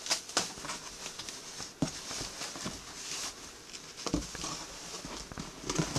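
Plastic wrapping rustling and crinkling as a fibreboard speaker base is unwrapped and lifted out of its cardboard box, with scattered light clicks and a few dull knocks of the board against the box, the heaviest about four seconds in.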